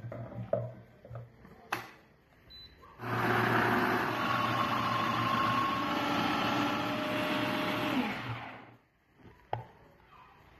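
Food chunks dropping into a Midea blender jar with a few knocks. Then the blender's motor runs steadily for about five seconds, whirling the contents into a purée, and winds down as it is switched off.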